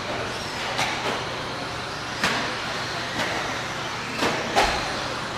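1/10-scale electric RC buggies racing on an indoor dirt track: a steady din of motors and tyres in a reverberant hall, broken by about six sharp clacks as the cars bounce and strike the track.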